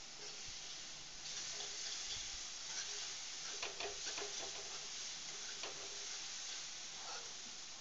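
Minced garlic sizzling in hot oil in a wok, with a metal spoon stirring it and scraping now and then against the pan; the sizzle gets louder about a second in.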